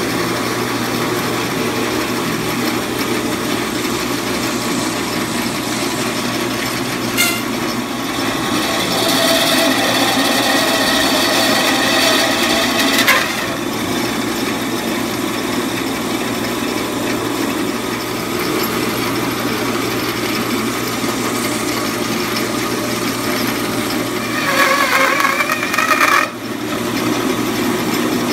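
Guide Gear meat band saw running steadily, its blade slicing through a deer ham. The sound turns harsher for a few seconds about nine seconds in and again near the end.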